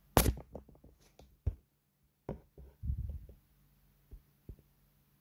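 Handling noise: a run of irregular knocks and taps, the loudest about a quarter second in and a cluster about three seconds in, over a faint steady hum.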